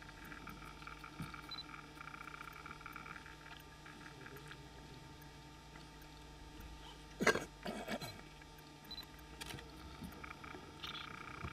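Lion feeding on a giraffe carcass: quiet tearing and crunching at the hide and flesh, with a short cluster of louder rips and crunches about seven seconds in and another snap a couple of seconds later.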